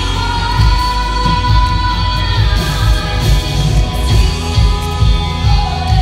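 Live church worship band: a singer holding long notes over guitars, keyboard and drums, with an even beat in the bass. It cuts off suddenly at the end.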